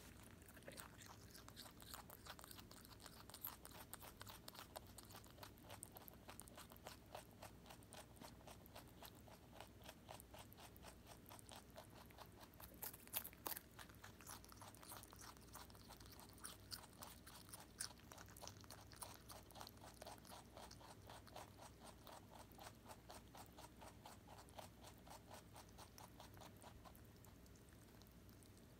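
Holland Lop rabbit chewing cabbage: fast, faint crunching, several bites a second, with a few louder crunches about halfway through. The chewing tails off near the end.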